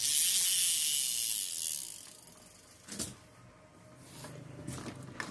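A metal-bodied Ryobi spinning reel being handled and cranked: a loud steady hiss for about two seconds, a sharp click about three seconds in, then a faint low whir of the reel turning smoothly.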